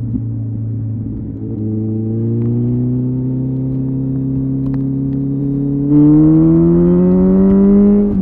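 Kawasaki ZZR 1400 inline-four through a Delkevic aftermarket exhaust, pulling hard under full acceleration. The engine note drops just after an upshift at the start, then climbs steadily in pitch through the gear. About six seconds in it gets suddenly louder and fuller as it keeps rising.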